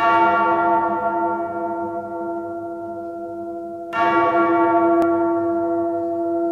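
A bell tolling: two strokes about four seconds apart, each ringing on and slowly fading.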